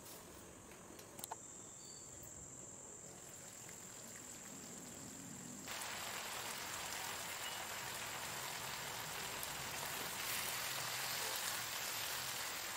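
Onion and capsicum masala gravy simmering in a pan. At first it is a soft bubbling hiss under a glass lid; after about six seconds, with the pan uncovered, it becomes a louder, steady sizzle.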